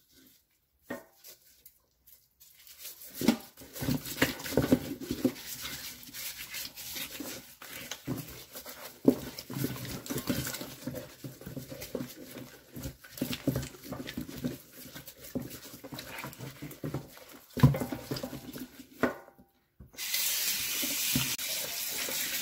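Gloved hands scrubbing a raw whole chicken with salt in a stainless steel sink: irregular wet rubbing of the skin with scattered knocks against the sink, one louder near the end. Shortly before the end the tap is turned on and water runs steadily into the sink.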